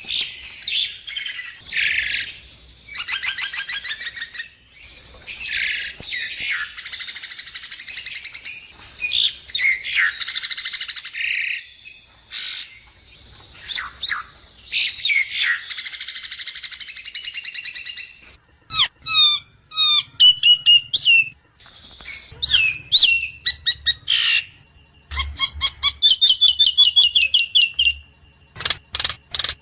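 Javan myna (jalak kebo) calling: a dense run of harsh chattering and squawky notes for the first half, then spaced whistled notes and quick rattling trills.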